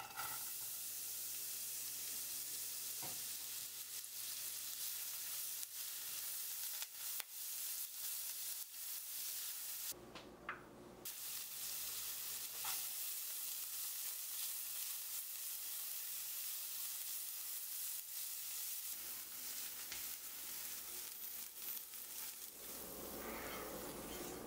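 Chopped onion frying in hot oil in a frying pan: a steady sizzle with scattered small crackles. The sizzle drops out briefly about ten seconds in, then carries on, and gives way to a different, lower sound about a second before the end.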